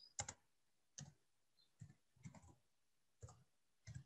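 Faint computer-keyboard typing: a handful of slow, irregular keystrokes.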